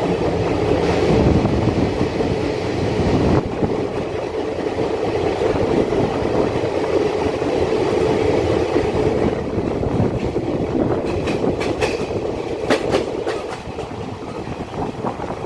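Passenger train coach running at speed through a tunnel, heard at the open coach door: a steady, loud rumble of wheels on rail with a strong hum. Near the end, as the coach comes out into the open, sharp clicks of the wheels over the rails stand out.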